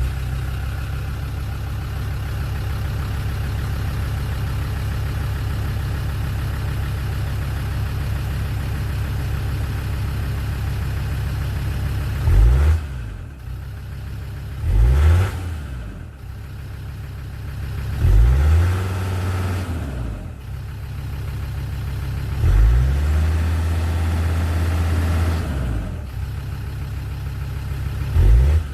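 Land Rover Discovery 2 Td5 five-cylinder turbodiesel idling steadily just after starting. About halfway through it is blipped twice, then revved and held twice, with a last short blip near the end, each time dropping straight back to idle.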